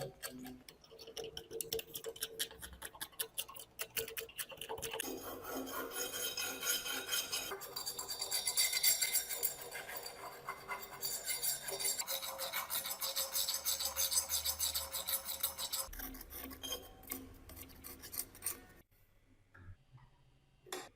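Rapid rasping strokes of rust being scraped or abraded off an old steel tool by hand, growing denser about five seconds in and stopping abruptly near the end.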